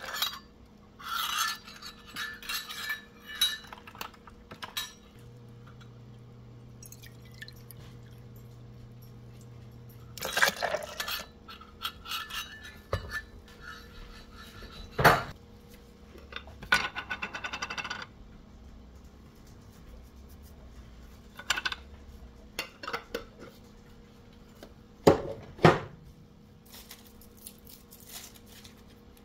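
Soy milk and water being poured into a plastic blender jar of oats and cashews, amid clinks and knocks of measuring cups and containers against the jar and counter. A few sharp knocks stand out, the loudest in the middle and near the end.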